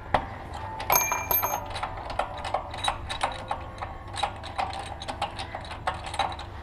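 Irregular metallic clicks and clinks, a few a second, some ringing briefly, as a wrench works the spark plug out of a small petrol engine.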